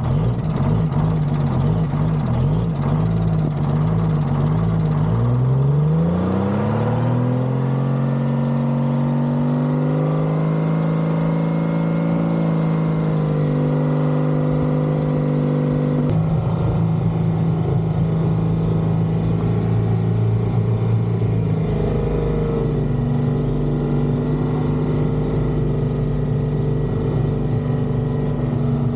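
Heavy diesel engine idling with a wavering note, then revving up about five seconds in, its pitch climbing over a few seconds. After that it runs steadily at higher revs, with a step down in note about halfway through.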